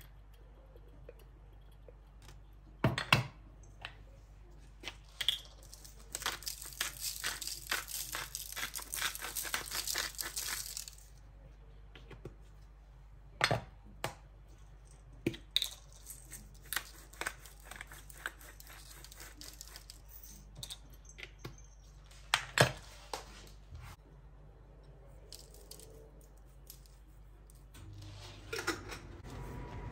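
Handling noises: a dense crinkling, tearing sound for about five seconds, with sharp knocks and clicks scattered before and after it.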